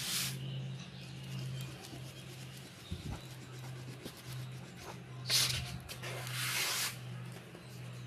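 Colour pencil rubbing and scratching on handmade paper in shading strokes, with louder scratchy strokes about five seconds in and again for about a second after that, over a steady low hum.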